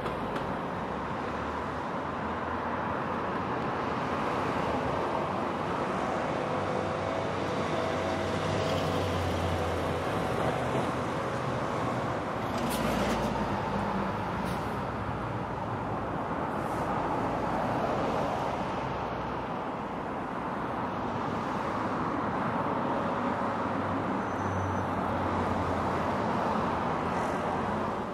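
Street traffic: a steady hum of cars and other vehicles driving by on the road, swelling gently as vehicles pass.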